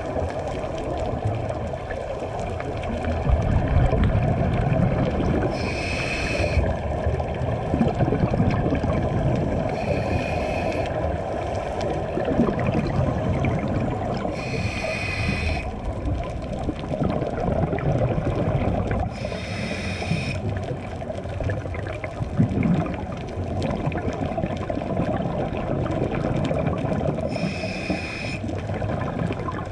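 Scuba diver breathing through a regulator underwater: five short hisses of inhalation a few seconds apart, with the low rumble and gurgle of exhaled bubbles between them.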